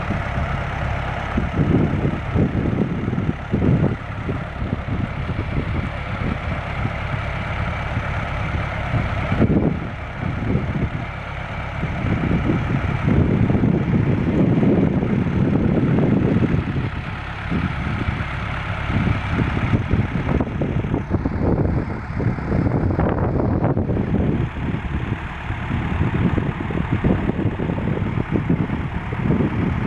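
Engine of a four-engine farm truck hauling rice, running continuously, its revs rising and falling.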